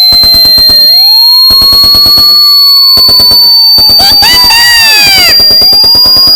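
Harsh layered electronic alarm noise: a piercing high tone that slowly rises in pitch over a slow siren-like wail, with rapid clicking throughout and a burst of falling electronic chirps about four seconds in. It cuts off suddenly just before the end.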